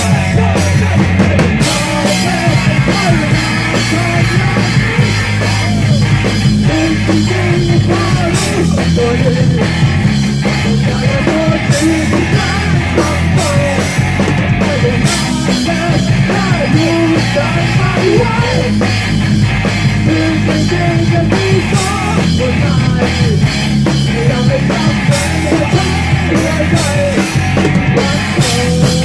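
Live rock band playing loud: a drum kit and electric guitar over sustained low bass notes that change every few seconds.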